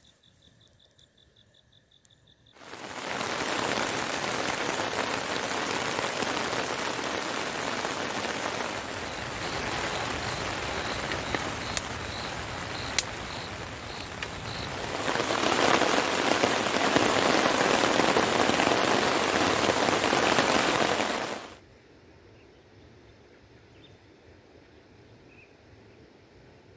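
Heavy rain pouring steadily, cutting in abruptly a few seconds in, growing heavier for its last several seconds and stopping abruptly about five seconds before the end. A faint steady insect trill comes before it.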